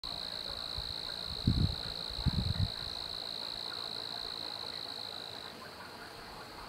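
An insect trilling steadily at a high pitch, cutting off suddenly about five and a half seconds in. Two short low thumps, about a second and a half and two and a half seconds in, are the loudest sounds.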